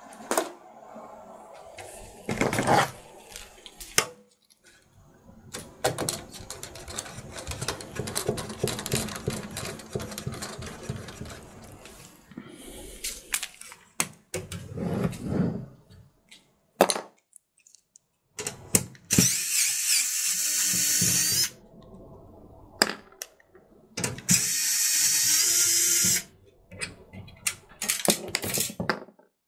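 A small electric screwdriver runs twice, about two seconds each, near the end, driving in screws while the M.2 SSD is fastened to the motherboard. Before that there are clicks and clatter of small parts being handled.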